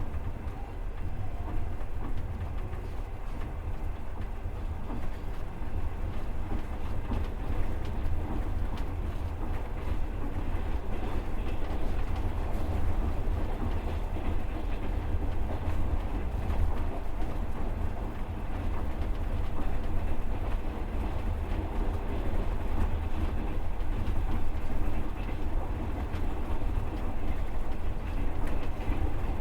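Passenger train carriage running along the rails, heard from inside: a steady low rumble with the knocking clatter of the wheels over the rail joints.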